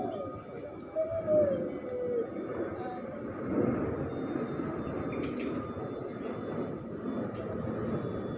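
Background din with distant voices and repeated short high chirps. About a second in comes a drawn-out call that falls in pitch.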